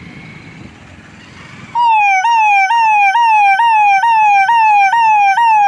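Siren sound in a fast yelp pattern: a loud, clean tone starts suddenly about two seconds in. It falls in pitch and snaps back up about two to three times a second, roughly ten times over, then cuts off abruptly at the end.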